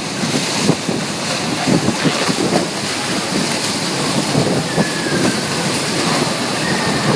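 Typhoon wind blowing hard across the microphone with churning, splashing water: a steady dense rush broken by many irregular splashes.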